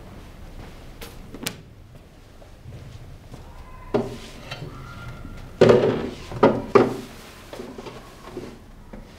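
A book set down on a table with a knock about four seconds in, then a chair pulled out and bumped as someone sits down: several heavy knocks and scrapes, the loudest sounds.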